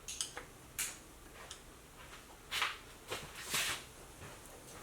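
Tools and engine parts being handled on a workbench: a few short clinks and scrapes, with shuffling in between.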